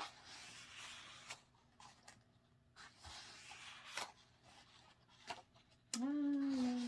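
Thick photo-book pages being turned by hand: two soft paper swishes with a few light taps. Near the end a person gives a short hum, the loudest sound.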